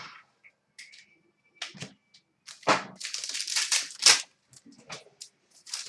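Trading cards being handled: scattered light clicks and taps of cards, with a longer rustle about three seconds in that lasts a second and a half.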